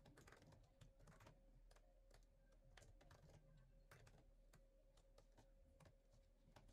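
Faint, irregular key clicks of typing on a laptop keyboard, a few keystrokes a second.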